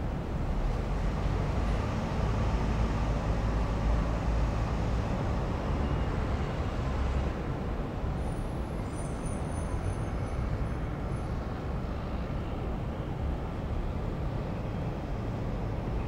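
City traffic ambience: a steady wash of road noise with a deep low rumble, a little louder in the first half, and a few faint high-pitched squeaks about halfway through.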